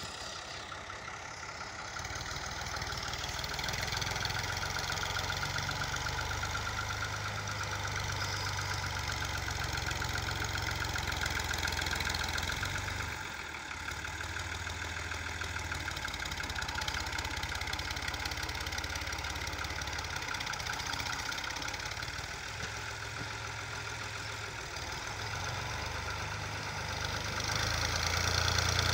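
Diesel engine of a 480 tractor running under load as it pushes loose soil with a front dozer blade. The engine note eases briefly about halfway through and grows louder near the end.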